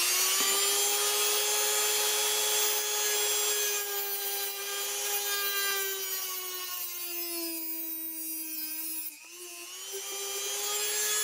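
Corded high-speed rotary tool with an abrasive cutoff wheel running with a steady whine as it grinds through metal-cored rubber edge trim. The pitch sags under load about two-thirds of the way through, dips briefly, then picks back up.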